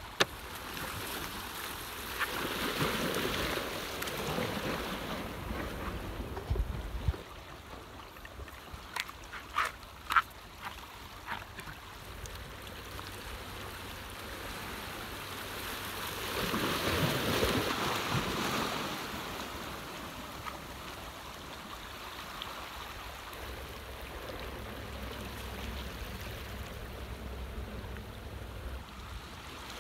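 Sea water washing in and out, swelling twice as waves come in, with a few sharp clicks and knocks about ten seconds in.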